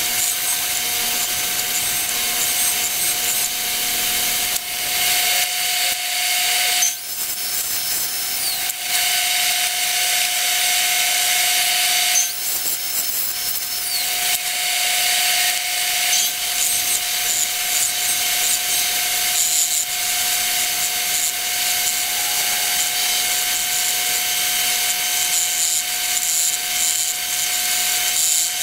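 2x72 belt grinder running with a steady whine while a steel knife blade is ground against the belt, giving a continuous grinding hiss, briefly broken twice.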